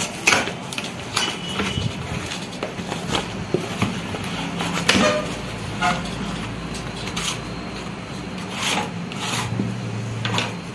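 Paper and cardboard packaging being torn open and handled: irregular rips, rustles and scrapes of kraft paper and card.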